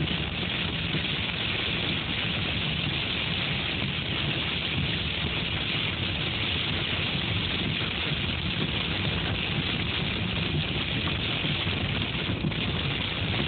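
Hail and heavy rain pelting a car's roof and windshield, heard from inside the car: a dense, steady hiss of countless impacts that never lets up.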